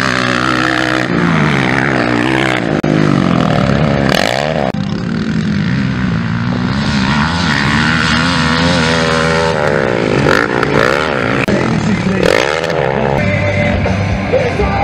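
Motocross bike engines revving hard and easing off again and again as riders accelerate out of corners and shift gears, the pitch climbing and dropping every second or two.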